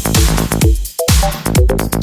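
Electronic dance background music with a steady kick drum about twice a second and a synth melody.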